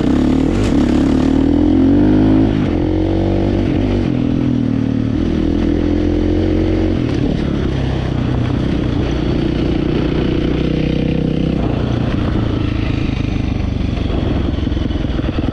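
Dirt bike engine running hard under changing throttle, its pitch rising and falling. It is loudest in the first couple of seconds, then holds steadier.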